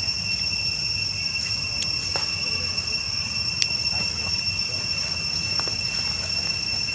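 A steady, unbroken high-pitched insect drone held on one pitch, over a low rumble, with a few faint clicks, the sharpest about three and a half seconds in.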